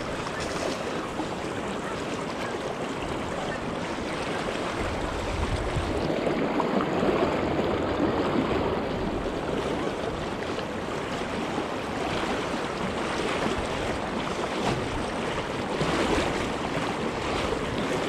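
Fast, high river current rushing around a wader standing in it, a river swollen and muddy with snowmelt. A steady, even wash that swells somewhat with a low rumble about a third of the way in, then eases.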